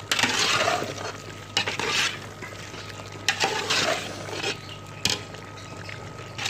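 Metal spoon stirring and scraping chicken and vegetables in a large metal cooking pot, in about four strokes with sharp clinks against the pot's side.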